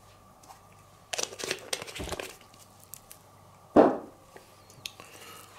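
Crinkling and rustling of packaging being handled for about a second, then a single sharp knock near the end.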